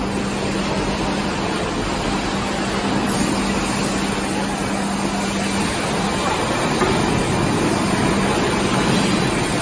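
CNC four-roll plate bending machine running with a steel plate in its rollers: a steady mechanical rumble under a steady hum, and the hum stops a little over halfway through.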